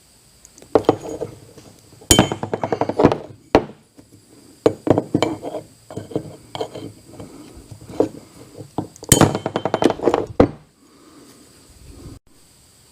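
Metal tools and parts clinking and rattling in quick bursts of clicks, the densest a few seconds in and again near the end.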